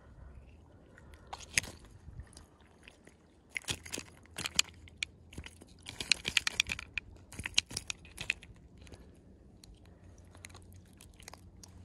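Close-up handling noise while a lure's hook is worked out of a small fish held in a plastic lip-grip: irregular clusters of clicks and crackles, busiest in the middle, then thinning to scattered ticks.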